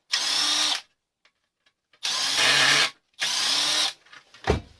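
Handheld power drill run in three short bursts of under a second each, its motor whining steadily, followed by a single sharp knock near the end.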